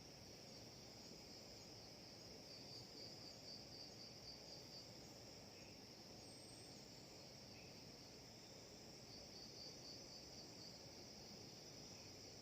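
Faint, steady high-pitched chirring of insects. Twice it breaks into a rapid pulsing: a couple of seconds in, and again about nine seconds in.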